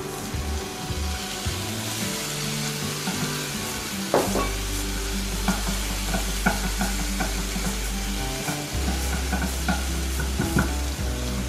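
Shrimp and bean sprouts sizzling in oil in a hot non-stick frying pan, stir-fried with a silicone spatula. From about four seconds in, the spatula knocks and scrapes against the pan again and again.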